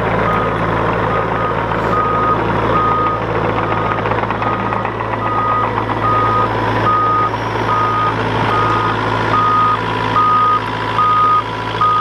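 Heavy earthmoving machine running with a steady engine hum while its backup alarm beeps at one pitch, nearly twice a second.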